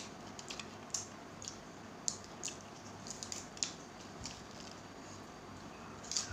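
Close-up eating sounds: irregular small clicks and crackles of chewing and of fingers picking food off a plate.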